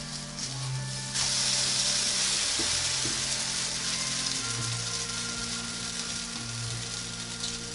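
Oatmeal pancake sizzling in a hot frying pan. The hiss jumps up suddenly about a second in as the pancake is turned onto its raw side, then slowly eases off.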